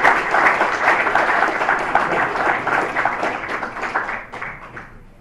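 Audience applauding at the end of a talk, the clapping thinning out and dying away in the last second or so.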